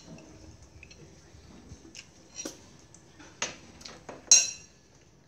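A metal spoon and chopsticks clicking against a ceramic plate: several light ticks, the loudest a short ringing clink just past four seconds in.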